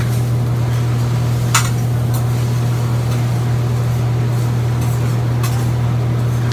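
A steady low hum from the hibachi restaurant's ventilation, with a sharp metallic clink of utensils about one and a half seconds in.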